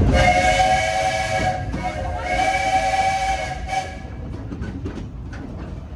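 Steam whistle of the coal-fired steam locomotive Myron H. blowing two long blasts over the running noise of the train. The whistle stops about four seconds in, leaving the quieter rolling of the train.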